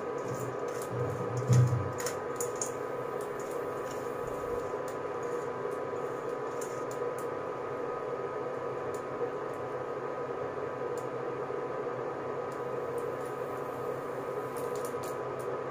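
Cooked rice tipped from a steel colander into a pan, with a knock of the colander against the pan about a second and a half in and a few light clicks in the first couple of seconds. The rest is a steady electrical hum with a couple of faint fixed tones as the rice is spread by hand.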